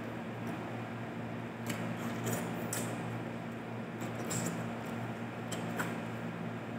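Eating by hand from a glass bowl: a handful of light clicks and smacks from fingers working the rice and fish and from chewing, over a steady low hum.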